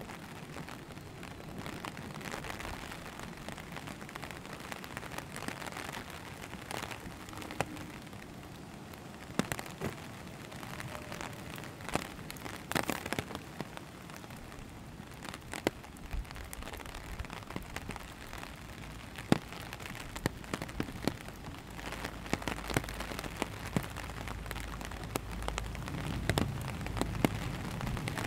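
Steady rain hissing on a wet road and trees, with scattered sharp taps of drops landing close by. A low rumble builds over the last few seconds as a car comes up the road.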